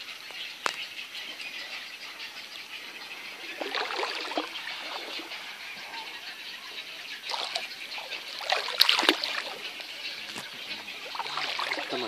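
Wading through shallow floodwater among shrubs, with water sloshing and twigs brushing in a few bouts over a steady outdoor hiss. The loudest bout comes about nine seconds in, and there is a single sharp click under a second in.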